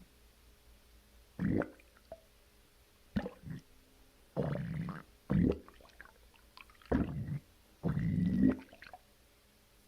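A person's stomach and intestines growling just after a bowel movement: a series of about seven irregular gurgling rumbles with short quiet gaps. The longest rumbles come near the end.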